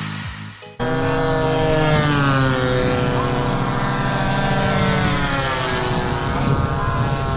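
Radio-control model warbird's propeller engine running in flight. It starts abruptly about a second in, and its pitch slides down and then wavers as the plane passes.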